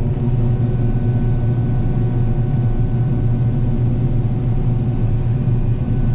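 Combine harvester running steadily while harvesting soybeans, heard from inside the cab: a constant engine and machinery drone with a strong low hum and several steady whining tones above it.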